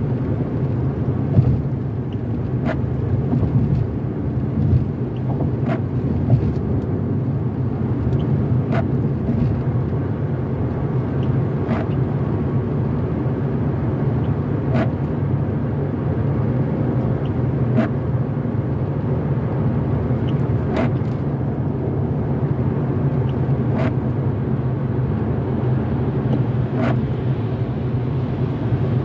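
Steady road and tyre noise from inside a car driving on a wet freeway. A short tick comes about every three seconds as the windshield wipers sweep.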